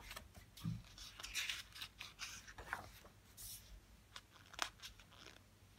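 Glossy pages of a hardcover book being turned and handled: faint, scattered paper rustles and small ticks, with a soft thump about a second in.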